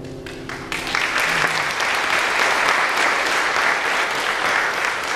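Audience applauding, the clapping building quickly within the first second as the last piano chord fades out, then going on steadily.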